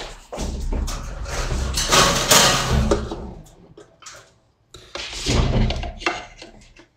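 Rustling and handling noise with footsteps, then a few light knocks and clicks about five to six seconds in as a plastic remote control is tucked in beside pet bowls on a counter.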